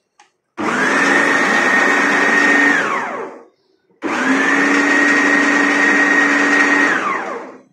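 Food processor motor run in two pulses of about three seconds each. Each pulse starts abruptly with a steady whine, then falls in pitch as the blade spins down. It is coarse-grinding soaked chana dal with no water added.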